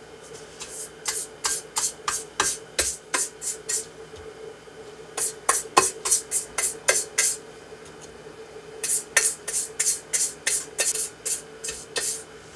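Pastry brush swishing oil into the cups of a madeleine pan, greasing it before baking. The strokes come quickly, about four a second, in three runs with short pauses between.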